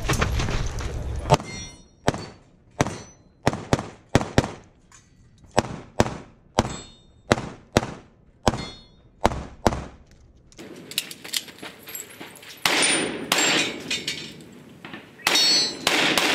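Rapid pistol shots in a timed competition stage string: about seventeen sharp reports at uneven spacing, often in quick pairs, over the first ten seconds. Then a denser, noisier stretch of shots follows near the end.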